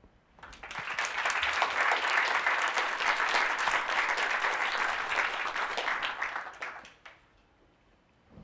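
Audience applauding: the clapping swells within the first second, holds, and dies away about seven seconds in.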